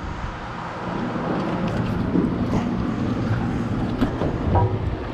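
Steady low rumble of wind and water noise on an open boat, with a few faint clicks.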